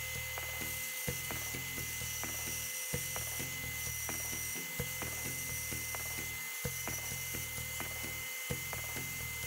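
A woodworking power tool running with a steady high whine, under background music with a regular beat and a bass line.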